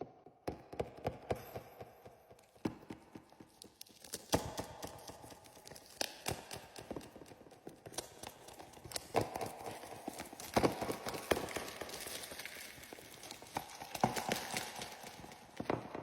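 Hands handling and opening a package: irregular sharp taps and clicks over rustling, busiest in the second half.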